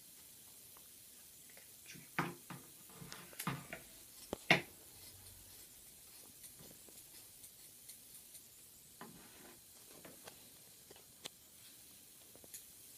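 Hands working tulle fabric into a tutu on a stuffed toy: scattered light clicks, taps and rustles, with a cluster of louder knocks about two to four and a half seconds in, then only faint single ticks.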